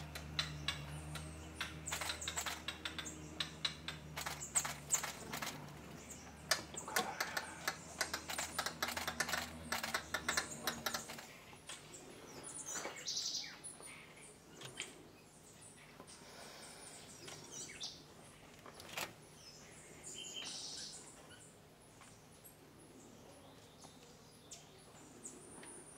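Rapid, irregular clicking over a low steady hum for about the first ten seconds. After that the hum stops and forest birds chirp now and then.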